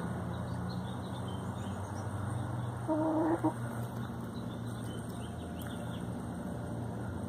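A chicken giving one short clucking call about three seconds in, over a steady low hum.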